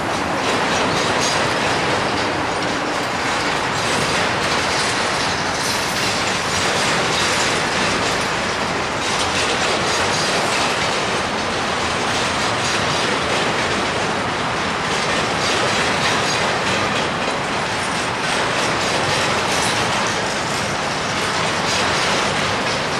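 Double-stack intermodal container well cars of a freight train rolling past: a steady rumble of steel wheels on rail with repeated clicking of the wheels over the track.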